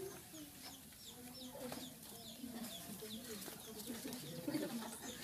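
Chickens clucking, with a steady run of short, high, falling peeps throughout, and faint voices murmuring underneath.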